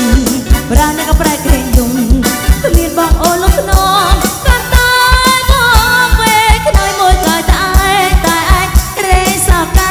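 Live Khmer romvong dance music in orkes style: a woman singing over a band with electric guitar and drum kit, driven by a steady kick-drum beat of a little over three beats a second.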